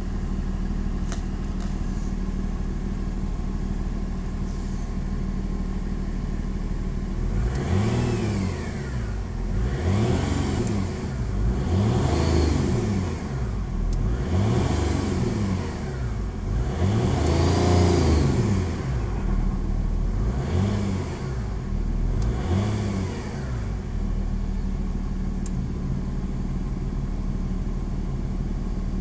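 Volkswagen Passat V6 TDI diesel engine idling, then revved about seven times, each rise falling back, before settling to idle again near the end. A high whine rises and falls with engine speed: a newly appeared noise that grows with RPM, cause undiagnosed.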